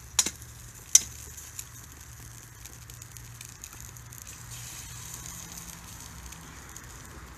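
An egg tapped sharply twice, about a second apart, against the rim of a stainless steel frying pan, then eggs frying with a steady sizzle and crackle in the pan over fire pit flames.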